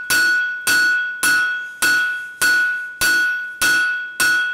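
A hand hammer strikes a red-hot steel bar on an anvil with about eight evenly spaced blows, a little under two a second. Each blow rings out clearly and fades before the next. This is the smith drawing out the nib of a pair of flat bit tongs.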